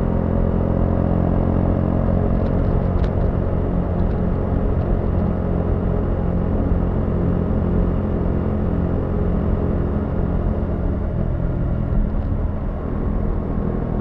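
Motorcycle engine running steadily while riding, with a brief drop in level near the end.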